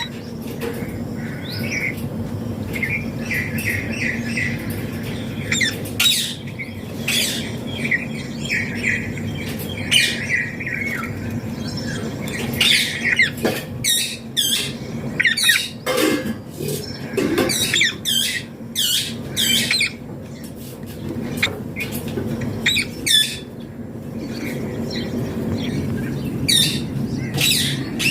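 Green ringneck (rose-ringed) parakeet calling: many short, sharp squawks and chirps in quick runs, coming thicker about halfway through. A steady low hum runs underneath.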